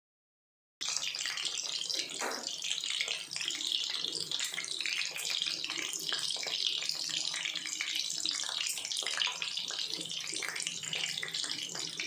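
Chicken meatballs deep-frying in hot oil in a kadai: a steady sizzle full of small crackles and pops, starting just under a second in after a moment of silence.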